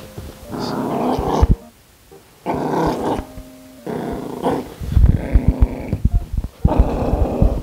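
A small Maltipoo dog growling in a run of rough bursts with short pauses while it grips a slipper in its mouth. This is a possessive growl: the dog is refusing to give the slipper up.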